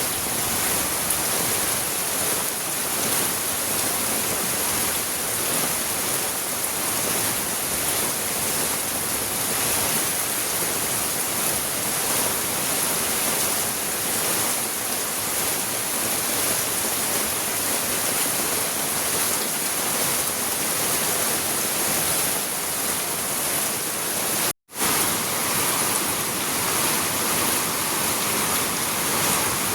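Rain falling steadily, a dense even hiss. It cuts out for an instant about 25 seconds in, then carries on.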